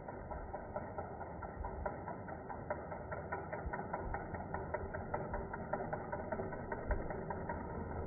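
Rapid mechanical ticking, several even ticks a second, over a low rumble; the ticking fades out near the end.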